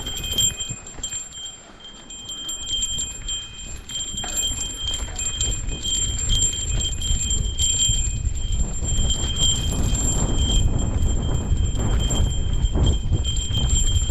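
A small metal bell ringing on and off with a clear high ring, over a low rumble of wind on the microphone and scattered clicks.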